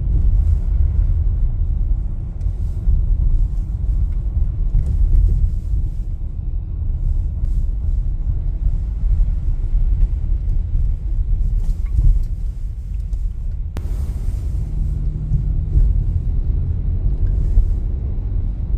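A car driving along: a steady low rumble of engine and tyre noise, with a faint steady hum rising briefly about three-quarters of the way through.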